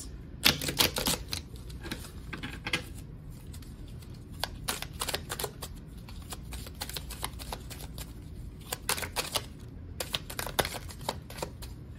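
A deck of oracle cards being shuffled by hand: quick flurries of card flicks and taps in several spells, with short pauses between them.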